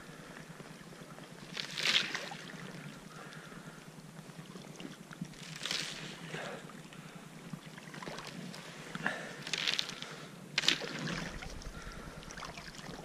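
Footsteps on thin river ice with water lying over it: a few short, wet crunching steps a few seconds apart.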